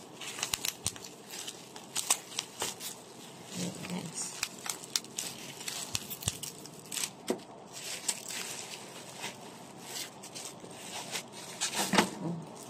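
Plastic packaging being handled: a clear plastic bag and bubble-wrap mailer crinkling and rustling, with irregular crackles throughout and a few soft knocks.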